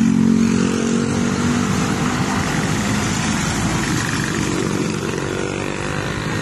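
A motor vehicle's engine running steadily, its pitch shifting a little about two seconds in.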